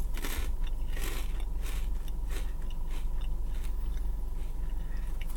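A person biting into and chewing crunchy Wild Habanero Cheetos close to the microphone: a run of irregular dry crunches.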